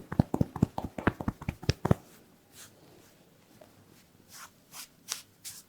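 Massage tapping: a quick run of soft strikes, about nine a second, stopping about two seconds in. A few brief swishing rubs follow.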